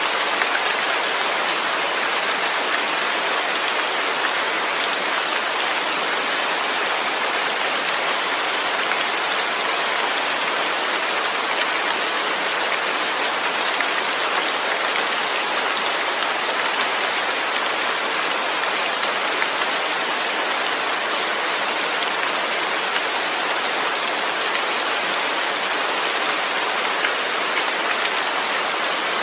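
Steady rain falling, a continuous even hiss of many drops with no change in intensity.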